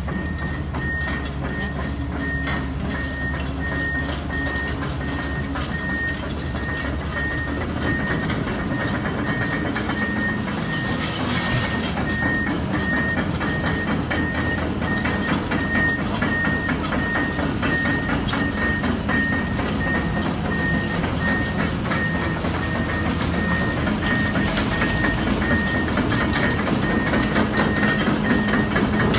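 Tracked excavator travelling toward the microphone, its diesel engine running under a steady, evenly spaced travel-alarm beep, growing louder as it comes closer.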